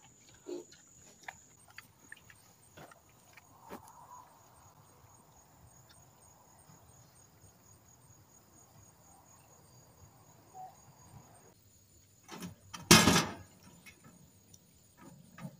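Crickets trilling: a faint, high, evenly pulsing chirr. A few soft clicks and one short loud rustle or thump come about 13 seconds in.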